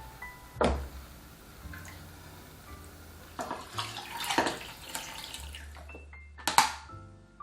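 Kitchen tap running water into a sink, with a sharp knock about a second in and another near the end.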